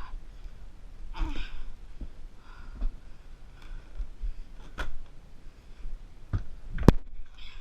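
A person breathing hard, with a breath about every second and a half, over low thumps. Several sharp knocks come near the end, one louder than the rest.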